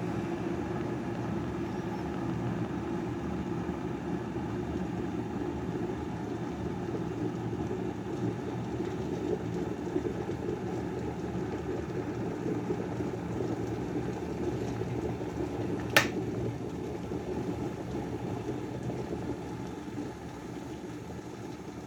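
Glass electric kettle heating water, a steady rumbling hiss. A single sharp click comes about two-thirds of the way through.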